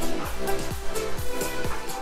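Electronic dance music with a steady kick-drum beat, a little over two beats a second, under sustained synth tones.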